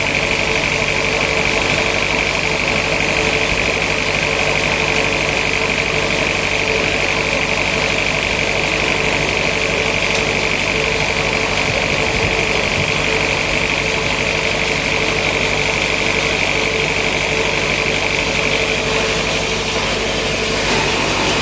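Sawmill saw machinery running steadily with a constant high whine and a lower hum; the whine fades near the end.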